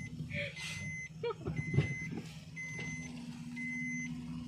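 An electronic warning beeper sounds a short high beep about once a second inside a moving car, over the steady hum of the engine and road. There are a few brief knocks in the middle, the loudest a little under two seconds in.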